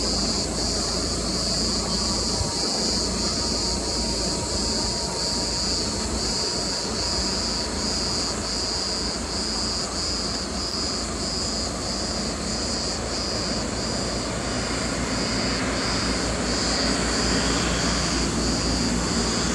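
Chorus of cicadas in pine trees, a loud, shrill buzz pulsing about twice a second, over a low steady rumble.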